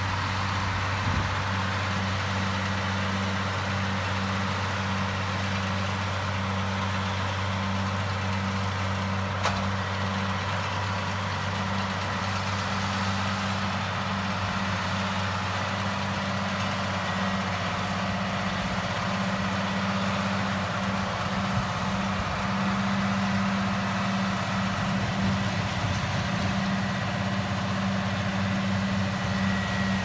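Tractor engine running steadily while pulling a CLAAS Rollant Uniwrap round baler-wrapper that is baling hay, a constant low drone with a thin high whine over it. One short click comes about nine and a half seconds in.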